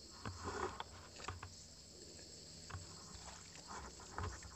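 Steady high chirring of insects, with scattered faint clicks and rustles from the crossbow being handled.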